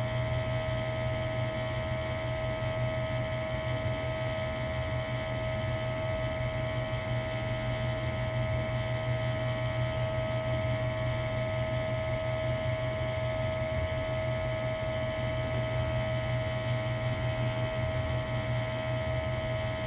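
A steady, unchanging droning hum with a constant high-pitched tone riding over it, the unexplained noise the recording was made to capture. A few faint clicks come near the end.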